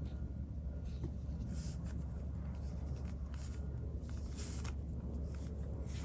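Several short, soft swishes of a Chinese ink brush stroking across sized cicada xuan paper, over a steady low hum.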